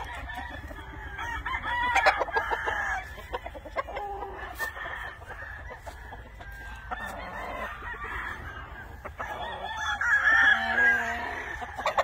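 Several gamecocks crowing and clucking, with the loudest crows about two seconds in and again near the end.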